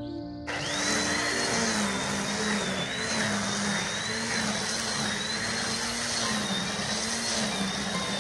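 A garden power tool's motor starts abruptly about half a second in and runs steadily, with a high whine and a low hum that waver slightly in pitch.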